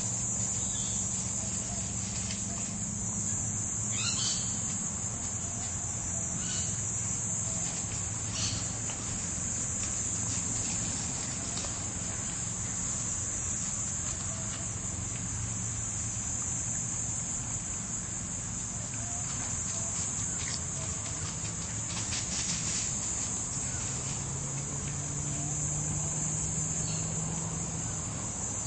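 Steady, high-pitched insect chorus, with a few brief rustles and scratches of dogs digging and nosing in dry leaf litter.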